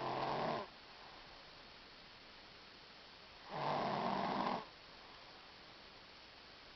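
A young girl snoring in her sleep. One snore trails off just after the start, and another, about a second long, comes about three and a half seconds in.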